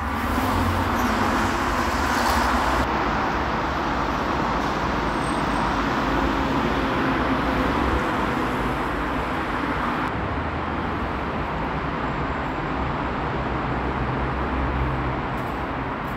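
Steady road traffic noise heard from inside an enclosed glass-and-steel pedestrian footbridge, getting louder about as the lift doors open.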